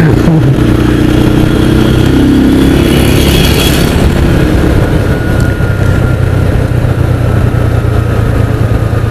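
Motorcycle engine running steadily while riding, over a constant rush of road noise, which briefly grows louder about three seconds in.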